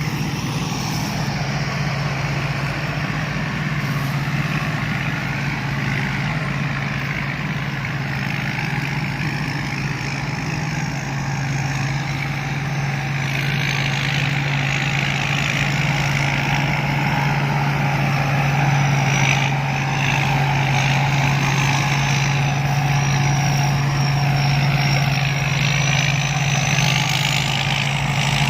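Combine harvester engine running steadily, a loud low drone with a thin high whine from the machinery that climbs slightly near the end.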